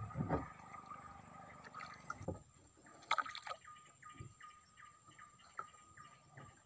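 Drips, small splashes and clicks of a wet nylon handline being hauled in hand over hand over the side of a wooden boat, with a few knocks on the hull; the sharpest click comes about three seconds in.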